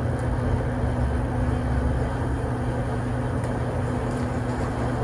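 A steady mechanical hum over a rushing noise, like a motor running at a constant speed.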